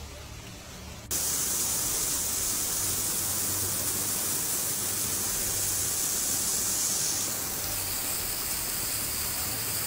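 Heavy rain pouring down: a loud, steady hiss that starts abruptly about a second in, after a quieter low hum.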